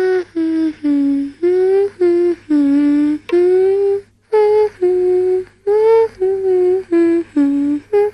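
A cartoon toddler's voice singing a wordless tune in about fourteen short, separate notes that step up and down, with a brief break about four seconds in.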